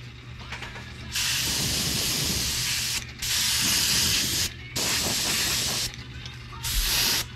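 Airbrush spraying paint in four short bursts of hiss, each about one to two seconds long, over a steady low hum.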